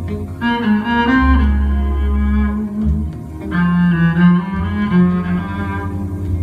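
Electric bass guitar played with a bow like a cello: long sustained notes, a deep held low note underneath and pitched notes above it that shift every second or so.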